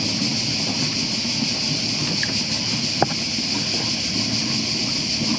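Wind buffeting the microphone over a steady high hiss, with a single sharp knock about three seconds in.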